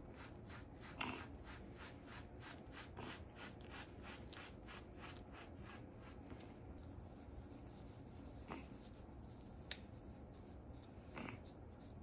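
Soft bristle brush scrubbing a wet chihuahua's fur in quick, regular scratchy strokes. The strokes stop about halfway through, leaving a few faint clicks.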